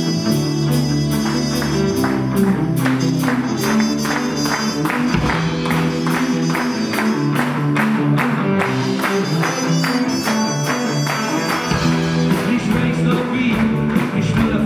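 Live band playing an instrumental passage between verses: trumpet lead over acoustic and electric guitars, keyboard and a steady drum beat.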